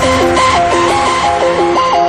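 Electronic music with a fast lead melody stepping up and down between notes, over a steady low bass.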